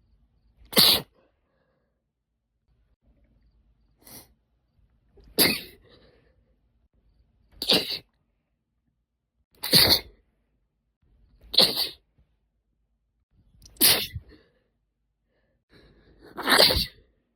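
A woman sneezing over and over, eight sharp sneezes about two seconds apart, the second one much weaker than the rest. The sneezes are deliberately induced.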